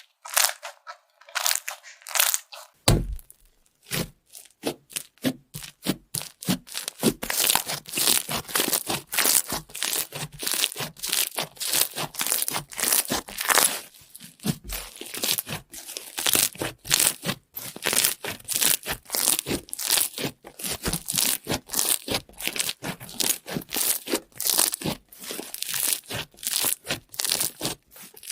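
Slime being squeezed and pressed by hand: a dense run of sticky pops and crackles, several a second. They are sparse at first and come thick and steady from a few seconds in.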